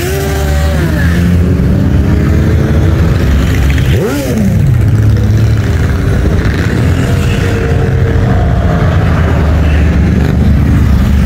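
A line of motorcycles riding past in a slow parade, their engines running steadily. One rider revs up near the start, and another gives a sharp rev that rises and falls about four seconds in.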